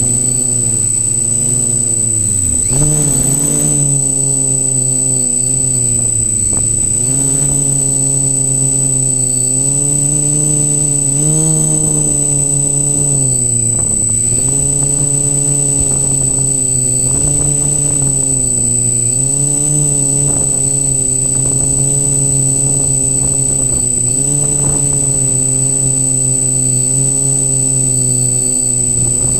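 Quadcopter's electric motors and propellers buzzing as the drone climbs, heard from a camera mounted on its frame. The pitch dips and rises again every few seconds with throttle changes, over a steady high-pitched whine.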